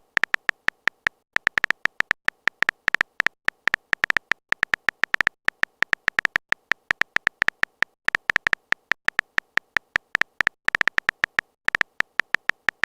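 Rapid, irregular string of short electronic beeps, several a second, with a few brief pauses: a text-typing sound effect as characters appear in a chat story.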